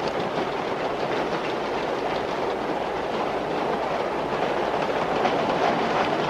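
Subway train running, heard from inside the car: a steady rumble and clatter of wheels on the rails.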